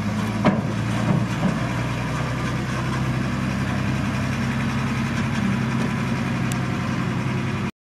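Dump truck's diesel engine running at a steady, even speed as it drives over dirt. There is a sharp click about half a second in, and the sound cuts off abruptly near the end.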